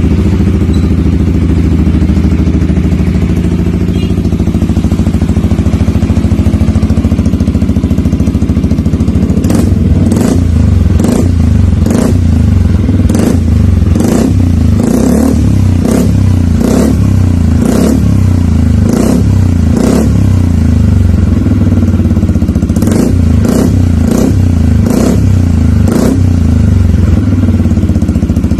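Yamaha XMAX 250 scooter's single-cylinder four-stroke engine running loud through a Burnout full-system exhaust with a long GP-style muffler. It idles steadily at first. From about ten seconds in come quick throttle blips, roughly one a second, each a short sharp rev.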